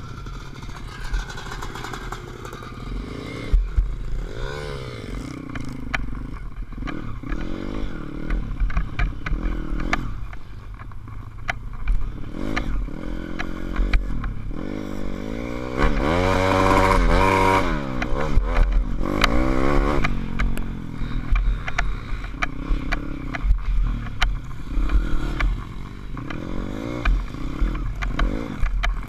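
SSR150 pit bike's single-cylinder four-stroke engine revving up and falling back again and again while riding a dirt trail, with rattles and knocks over the bumps. The longest, loudest pull on the throttle comes a little past halfway.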